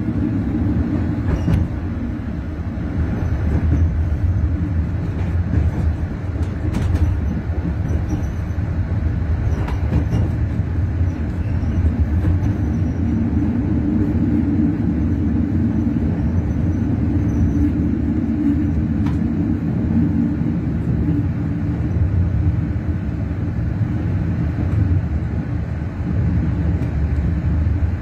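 Steady rumble of a moving passenger train heard from inside the coach, with a few faint clicks from the wheels and track.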